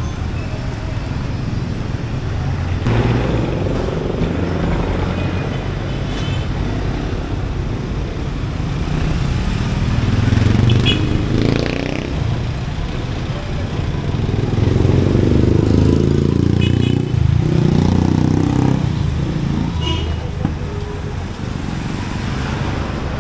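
Street traffic: motor vehicles, motorcycles among them, passing close by over a steady rumble of road noise, the engines swelling and fading several times.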